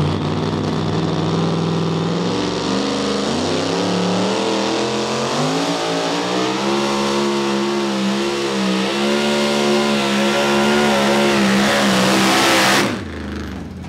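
Supercharged engine of a pulling truck running hard at high revs under load, its pitch wavering as it pulls. Near the end the engine sound cuts off suddenly.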